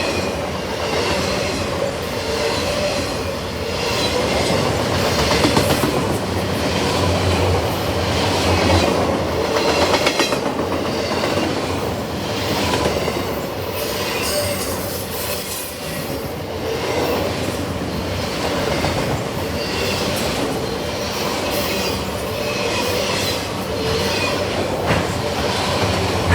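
Freight train of autorack cars rolling past: steady wheel-on-rail noise, with a run of clicks as the wheels cross rail joints and a faint held squeal from the wheels.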